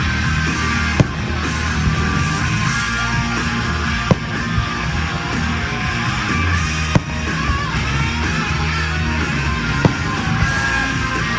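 Rock music with electric guitar played loud over a show sound system, with a sharp bang about every three seconds from fireworks bursting.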